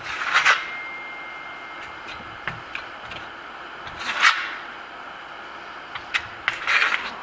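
Stainless steel Pavan trowel scraping lime-based Grasello Venetian plaster across a primed board, in three short strokes: near the start, about four seconds in, and near the end. Light clicks and taps of the trowel come in between.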